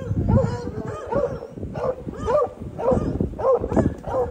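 Dogs barking in short, repeated yips, about two or three a second, over low wind noise on the microphone.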